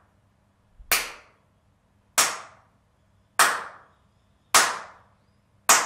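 Single hand claps, five of them about a second and a quarter apart, each followed by a short reverberant tail off the bare plywood walls and roof: quite a bit of reverb, a bit more than slap back, in the untreated room before acoustic panels go in.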